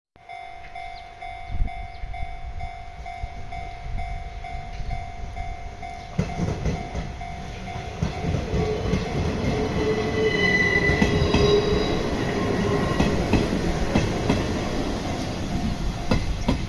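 A level-crossing warning bell rings with a steady pulsing tone. Then a Hanshin 7861-series train approaches and passes close by, its rumble growing louder from about six seconds in, with a whine around ten seconds in and wheels knocking over rail joints near the end.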